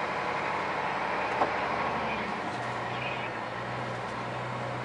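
Scania truck's diesel engine running at low speed as the lorry creeps slowly onto a ferry. Its note shifts about halfway through, and there is a small knock a little before that.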